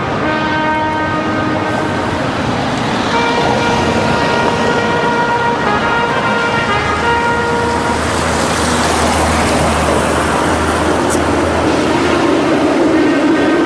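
Street traffic beside tram tracks: a car passes with a steady low engine hum, and near the end a tram moves off past the camera alongside a van. Held tones with overtones, changing pitch every couple of seconds, sound over the traffic in the first half.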